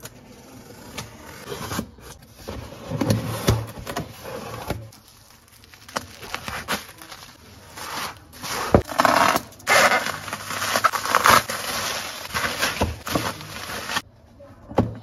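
Packing and unpacking handling sounds: scissors cutting packing tape on a cardboard box, then bubble wrap crinkling and rustling as it is pulled away by hand. The noise comes in uneven clusters of sharp clicks, crackles and scrapes.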